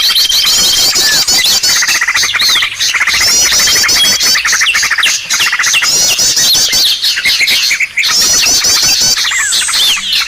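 Small-bird lure recording: a dense, loud mix of many small birds' chirps, calls and trills layered together. Bursts of quick high trills recur every couple of seconds.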